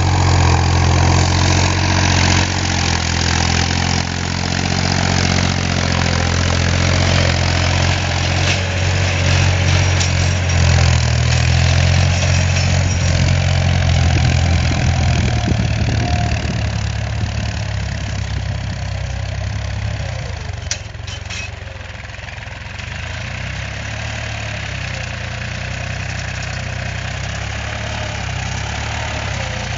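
Diesel engine of a red Massey Ferguson tractor running steadily under load while it pulls a cultivator. The engine is loud and close at first, then fades from about halfway as the tractor moves away.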